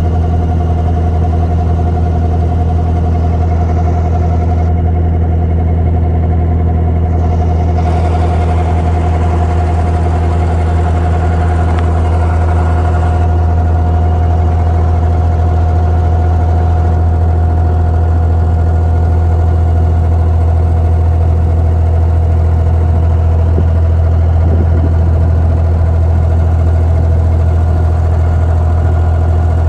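An abra's inboard diesel engine running steadily under way: a loud, unchanging low drone with a steady hum above it.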